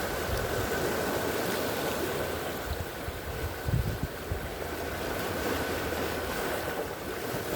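Ocean surf washing onto the beach, a steady hiss of breaking waves, with a few low bumps on the microphone about halfway through.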